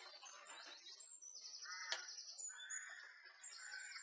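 Faint songbirds singing: high trills and chirps, with one sharp click about halfway through.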